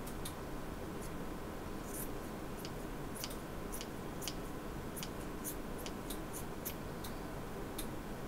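Scissors snipping yarn: a string of short, crisp snips at an irregular pace of about two a second as a yarn tassel's ends are trimmed.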